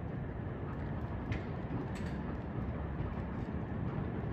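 Outdoor ambience over a rail yard: a steady low rumble of distant trains and town traffic, with two faint clicks about a second and two seconds in.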